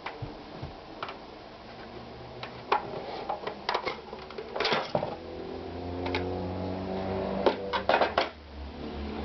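Victoria 739 sewing machine being tested: a few clicks and knocks, then about halfway through its motor starts and runs with a steady hum that lasts to the end.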